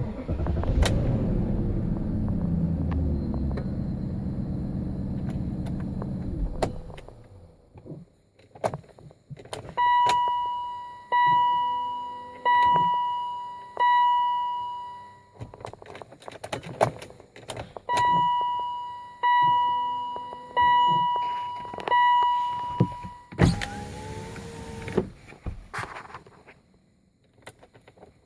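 A BMW V8 running, then shut off about seven seconds in, followed by clicks. The car's warning chime then sounds five times and, after a pause, four more times. Near the end a brief whir with a falling pitch is heard.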